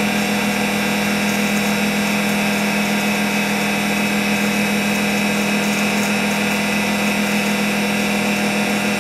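A DCM IG-180-M vertical spindle rotary surface grinder running steadily in auto cycle, giving a steady hum and hiss. The wheel is dwelling at final depth, sparking out.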